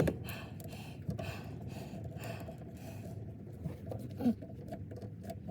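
Faint scraping and clicking of hand work, likely a screwdriver tightening a worm-drive hose clip on the heater hose, with a short grunt about four seconds in.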